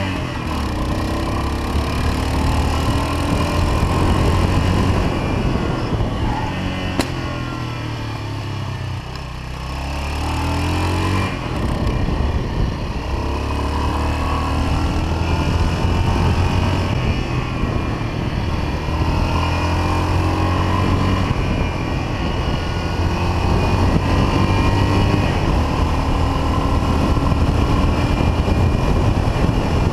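1979 Yamaha XT500's air-cooled single-cylinder four-stroke engine running under way, its pitch rising and falling as the bike accelerates through the gears. The engine eases off briefly about a third of the way in.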